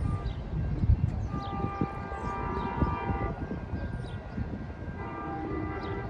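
Horn of the approaching Amtrak Wolverine train, still out of sight, a chord of several steady tones: one long blast of about two seconds, then another starting near the end.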